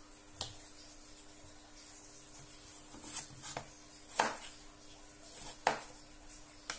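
Kitchen knife cutting a raw potato into pieces on a wooden chopping board: several separate, irregularly spaced knocks as the blade goes through and meets the board.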